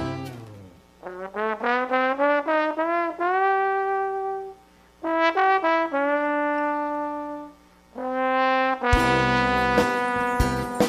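Solo trombone playing three short melodic phrases, each ending on a held note, with short pauses between them. The full brass band's chord dies away at the start and the band comes back in loudly about nine seconds in.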